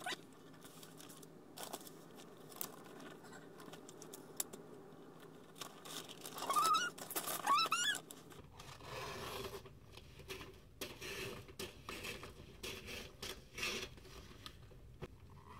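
Christmas wrapping paper rustling and crinkling as it is cut and folded around a gift box, with scissors snipping; two short rising squeaks about halfway through.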